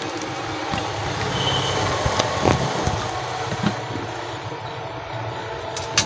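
Steady rumbling background noise that swells between about one and three seconds in and then eases off, with a light knock near the end as the circuit board is handled.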